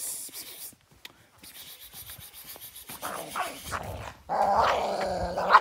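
Dog growling, breaking into a loud, sustained growl over the last second or so.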